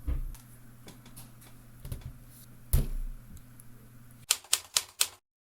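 ROKR LK703B wooden model typewriter being typed on. A few scattered key strikes, one louder clack nearly three seconds in, then four quick clacks in a row about four seconds in.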